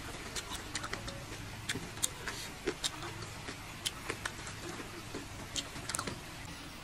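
Chewing and wet mouth clicks from eating close to the microphone: irregular small clicks and smacks, several a second.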